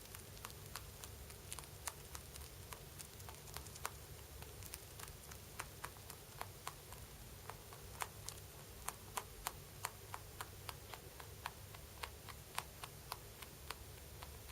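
Rabbit chewing: a steady run of small, crisp crunching clicks, a few each second and irregular in spacing.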